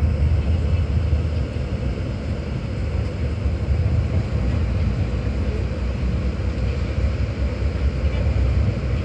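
King Long XMQ6871CY bus's diesel engine heard from inside the cabin, a steady low drone as the bus rolls slowly.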